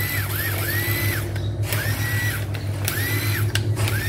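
Cordless Makita impact driver run with no load in a series of short trigger pulls, its motor whining up and winding down about once a second, each run lasting about half a second.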